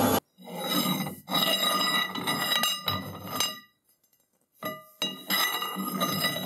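Metal handle tube being slid and fitted by hand onto a turned steel shaft held in a lathe chuck: clinks, scrapes and a ringing tone from the tube, in several short pieces broken by abrupt silences.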